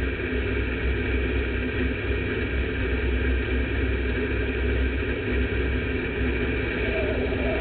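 Sport modified dirt race car's V8 engine idling steadily, heard from inside the cockpit with the car standing still.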